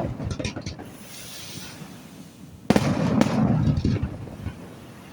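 Aerial fireworks: a sudden loud boom about two and a half seconds in, then crackling and rumble that fade away. Faint crackle trails off from an earlier burst at the start.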